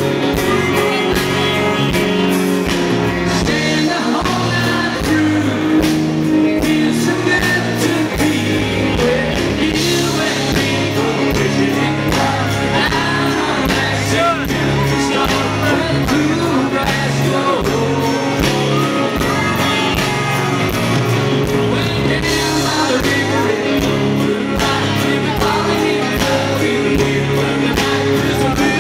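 A country band playing live, a lead vocal singing over guitars and a steady beat.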